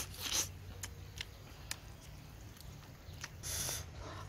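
Mouth sounds of a person eating fish stew from a spoon: a noisy slurp right at the start, a few soft lip smacks and clicks, and a hissier suck about three and a half seconds in.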